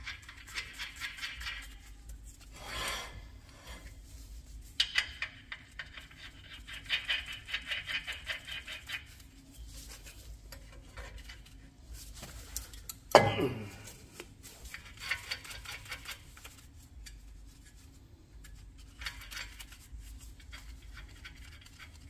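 Lug nuts being threaded and tightened onto a 2004 Ram dually's wheel studs with hand tools: several runs of rapid metal clicking, with one sharp metal clank about 13 seconds in.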